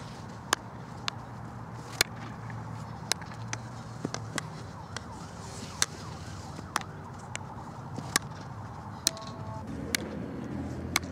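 Field hockey sticks striking a hard ball on artificial turf: sharp clacks at irregular intervals, roughly one a second, as the ball is passed and received in a drill.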